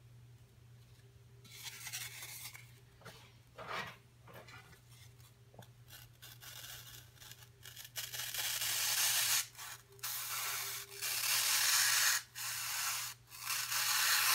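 Hand tool scraping and rasping a foam climbing-hold blank in repeated strokes. The strokes are short and soft at first, then grow louder and longer about eight seconds in.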